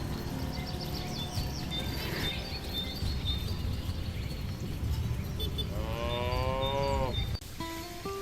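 A cow moos once, a drawn-out call of about a second that rises and then falls in pitch, over a steady low rumbling background. Shortly after the moo the sound cuts off abruptly and steady tones begin.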